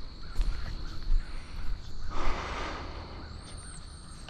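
Footsteps crunching on a gravel path, with a louder rustling scuff about two seconds in, over a steady high-pitched insect trill. A few faint high bird whistles come near the end.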